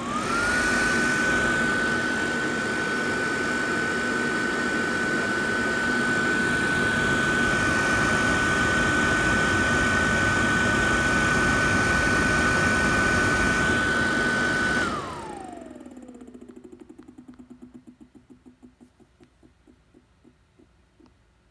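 An airblown inflatable's blower fan starts up and runs with a steady high whine over a rushing noise. About 15 seconds in it is switched off and spins down, the whine falling away into a ticking that slows and fades. The noise is one the owner finds abnormal.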